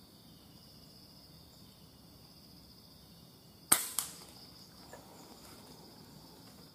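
A single air-rifle shot, a sharp crack nearly four seconds in, followed about a third of a second later by a second, weaker crack, as the perched spotted dove is hit and falls. A steady high insect drone runs underneath.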